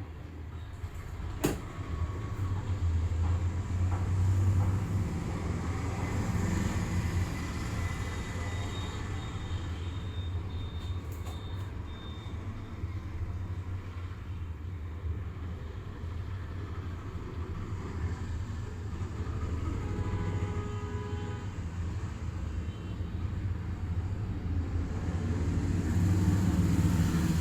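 Steady low rumble of vehicle noise, with a single sharp click about a second and a half in.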